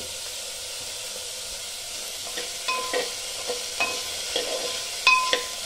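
Chopped flat beans and potatoes sizzling in oil in a metal pan, a steady hiss. After about two seconds they are stirred, and the spoon scrapes and clinks against the pan with short ringing knocks; the loudest clink comes near the end.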